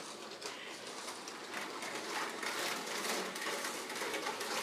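A Lego passenger train running on plastic track: its motor whirring and its wheels clicking rapidly and unevenly over the rail joints.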